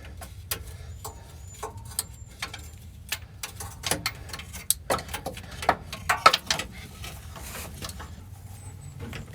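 Irregular metallic clicks and knocks of a socket and extension bumping and catching against metal while feeling blindly for a hidden starter mounting bolt.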